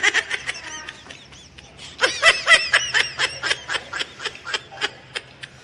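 People laughing in quick high-pitched bursts, one burst at the start and a longer run from about two seconds in.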